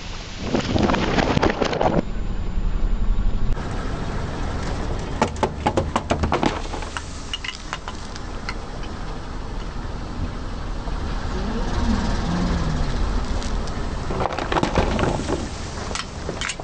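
A car's tyres rolling over objects and crushing them: crackling, popping crunches over the low rumble of the car, strongest a few seconds in, across several short cut-together clips.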